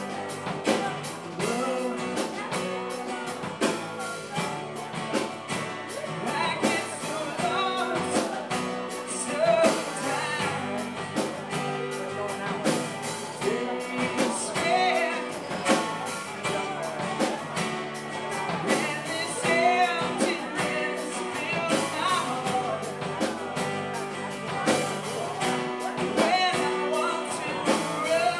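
Live band playing: strummed acoustic guitars over a drum kit keeping a steady beat, with a man singing.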